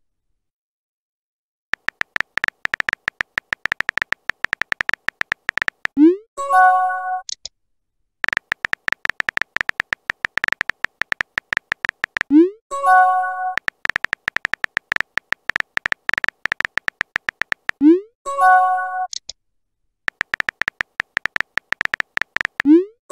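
Phone keyboard typing clicks from a texting app, in fast runs of about four seconds. Each run ends with a message-sent sound: a quick rising pop and a short chime of tones. This happens four times.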